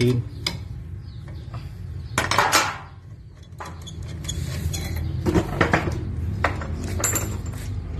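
Diesel injector testing: a steady low machine hum with scattered sharp metallic clinks and a short hissing burst about two seconds in.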